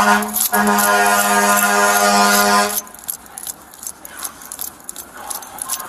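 A vehicle horn sounding one steady low tone, broken for a moment about half a second in and stopping a little under three seconds in. After it comes a quieter jingling and clicking, like keys or gear rattling.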